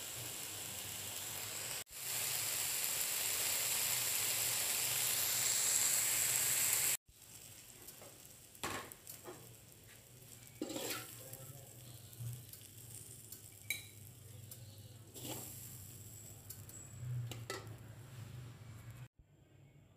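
Bean sprouts and dried anchovies sizzling in a hot wok. The sizzle is loud and steady for the first seven seconds, then drops suddenly to a quieter hiss. Over that quieter hiss a metal spatula scrapes and clinks against the wok every second or two as the food is stirred.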